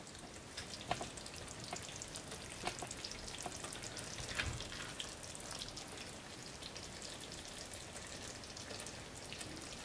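Faint crackling sizzle of a tomato and ground-beef sauce with peas simmering in a pan, with a few soft clicks as the sauce is spooned out.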